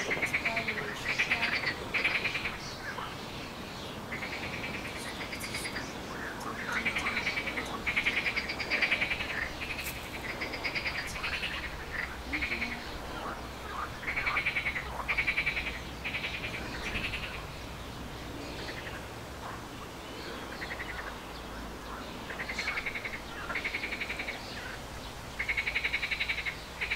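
Short trilled animal calls, each well under a second, repeated about once a second over a steady low background.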